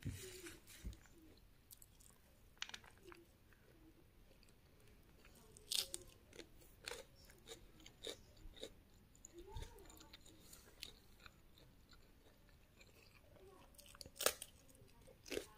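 A person chewing a mouthful of rice and vegetables with green chillies, with irregular crunchy bites and wet mouth clicks. A sharp crunch stands out about six seconds in, and the loudest comes near the end.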